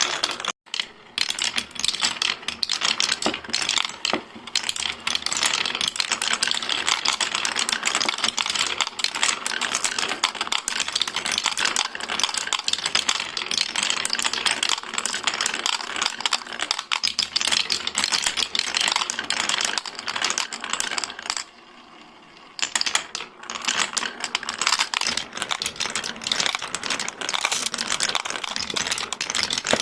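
Many marbles rolling and clattering down a marble run, a dense stream of small clicks and knocks. It drops away for a moment about 22 seconds in, then starts up again.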